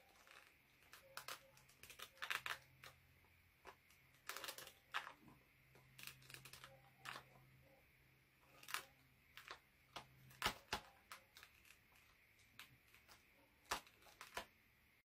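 Paper crackling and clicking faintly in short, irregular snaps as it is handled.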